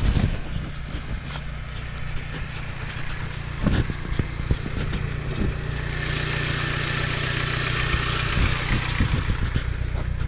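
Audi 1.8-litre four-cylinder engine idling steadily, with a hiss joining in about six seconds in and dying away near the end.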